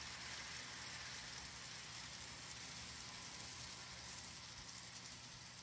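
N gauge model electric train running on the track through a turnout: a faint, steady motor hum and wheel rumble, growing slightly quieter near the end.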